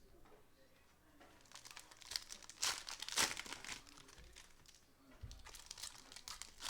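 A plastic trading card pack wrapper crinkling and being torn open. The crinkling builds about a second in, is loudest around the middle, eases off, then picks up again near the end.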